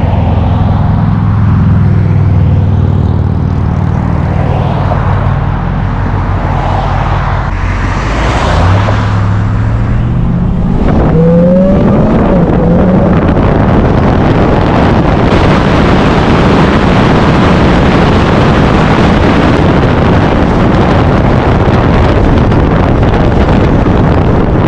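An engine running steadily, then revving with a rising pitch about ten seconds in, after which a loud steady rushing noise takes over, like a vehicle under way.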